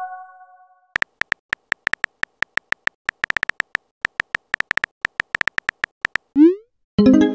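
Smartphone keyboard tap clicks, many quick taps as a message is typed out, after the tail of a notification chime fades at the start. About six seconds in comes a short rising bloop, the message-sent sound, followed by a brief buzzy electronic tone near the end.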